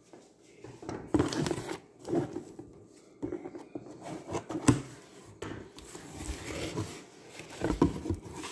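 Cardboard shipping box being handled and its flaps pulled open: irregular knocks, scrapes and rustles of cardboard, with a few sharper knocks along the way.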